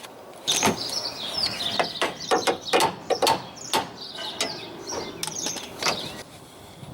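Irregular metallic clicks, knocks and scrapes as a Porsche Boxster 986 front tuning-fork control arm is worked back into its mounting, a struggle to fit, with a few short high chirps among them.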